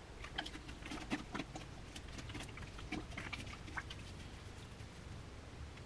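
Sponge soaked in wet clay slurry being squeezed by hand: faint, irregular soft wet clicks and squelches.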